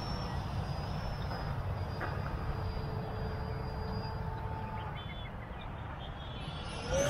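Faint, steady whine of the FMS F-15 V2 RC jet's electric ducted fans flying far off, over a low rumble of wind on the microphone. Just before the end the whine gets suddenly louder and rises in pitch as the jet comes closer.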